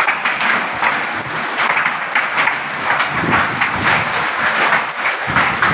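A hailstorm with rain: hailstones and raindrops pelting wet gravel and puddles as a dense, steady crackle of many small hits. A low rumble joins in the second half.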